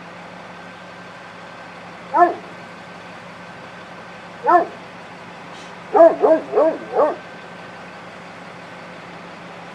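A dog barking: a single bark, another a couple of seconds later, then a quick run of four barks. A steady low hum runs underneath.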